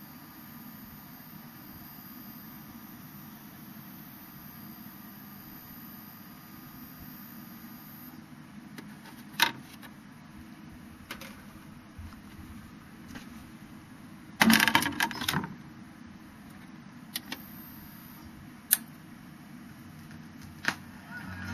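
A record being changed on a SHARP VZ-1500 turntable: scattered sharp clicks and a loud burst of clatter and knocks about two-thirds through as a transparent disc is lifted off and a vinyl LP set on the platter. A faint steady hum stops about eight seconds in.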